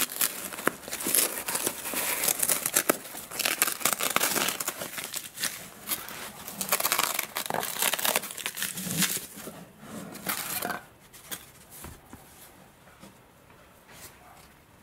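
Crinkling and rustling of foil-faced bubble-wrap packing as sailplane parts are handled and pulled out of a packed crate, with bits of tearing. It goes on busily with many small crackles, then dies down about eleven seconds in.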